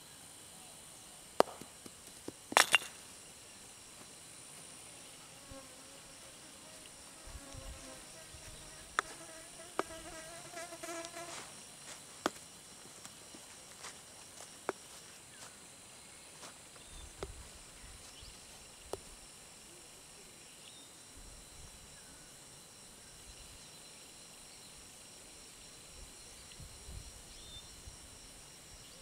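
Insects buzzing steadily in a high-pitched drone. About two and a half seconds in comes a sharp double knock of a wooden woodball mallet striking a wooden ball, with a smaller knock just before it and a few fainter clicks later.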